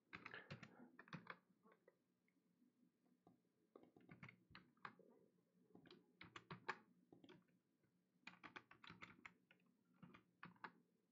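Faint typing on a computer keyboard: clusters of quick keystrokes in about four short bursts, with pauses between them.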